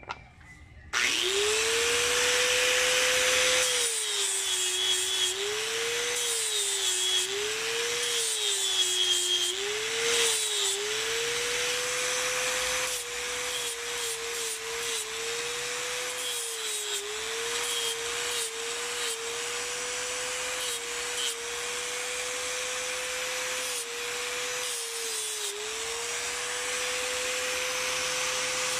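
Electric angle grinder switched on about a second in, spinning up, then grinding water buffalo horn with an abrasive disc. The motor's whine dips in pitch each time the disc is pressed into the horn and recovers when it is eased off, over a steady grinding hiss.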